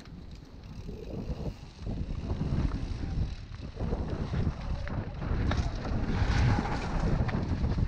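Mountain bike descending a dry dirt trail: tyres rumbling over the ground and the bike clicking and rattling, with wind buffeting the microphone. The rumble grows louder over the first couple of seconds as speed picks up.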